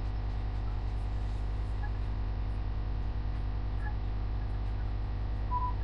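Steady low electrical mains hum with a buzzy stack of overtones, unchanging throughout; a brief faint tone sounds near the end.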